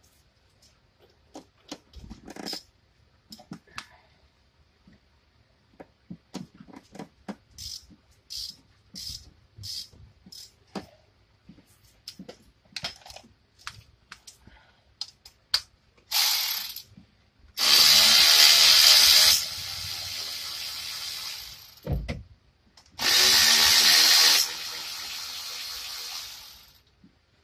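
Hand ratchet clicking in short, irregular runs on the brake caliper bolts. It is followed by two loud runs of a few seconds each from a tool, each starting loud and then dropping to a lower steady level before stopping.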